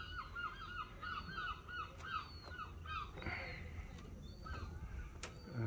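Birds calling in a rapid series of short, harsh notes, several a second, growing fainter after about three seconds. A brief rush of noise comes a little past the middle.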